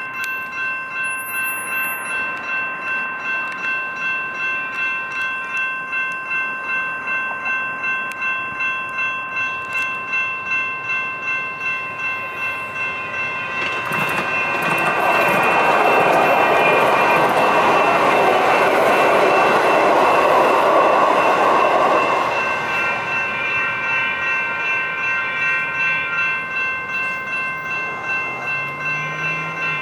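Railroad crossing bells ring steadily in a regular pulse. From about 14 to 22 seconds they are half-drowned by Siemens Duewag U2A light rail trains passing over the crossing, with a loud rush of wheel and rail noise that swells and then fades.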